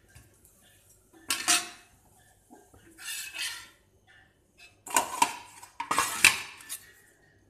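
A metal spatula scraping and clanking on a dosa tawa as a crisp dosa is loosened, folded and lifted off. There are four short scrapes, about 1.5, 3, 5 and 6 seconds in, and the last gives a brief metallic ring.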